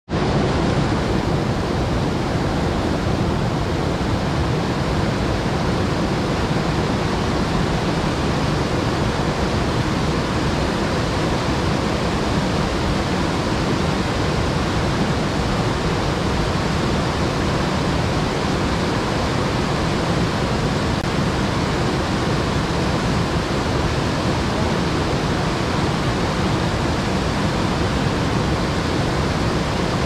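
Steady rushing of a waterfall, water pouring and splashing without a break.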